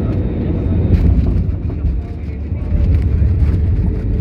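Airliner cabin noise while rolling down the runway after touchdown: a steady low rumble of engines and wheels with a constant hum and scattered small rattles, easing briefly about two seconds in.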